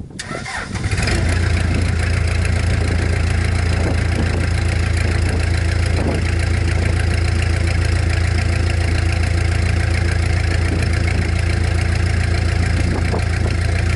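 Case 580K backhoe's diesel engine running steadily at a constant speed. It comes in suddenly near the start and settles within about a second.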